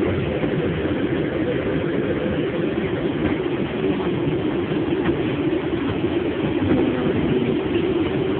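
New York City subway car running, heard from inside the car as a steady, even rumble.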